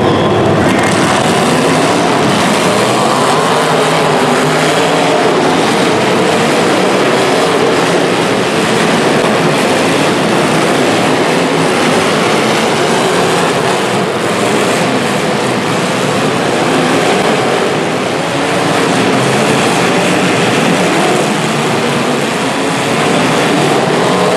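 Engines of several demolition derby cars running hard together, a loud, dense, steady noise with no single engine standing out.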